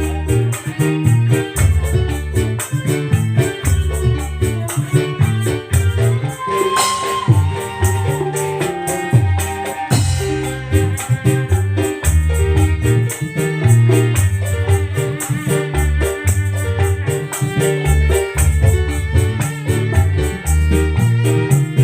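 Loud music with a heavy bass line and fast, even shaker-like percussion.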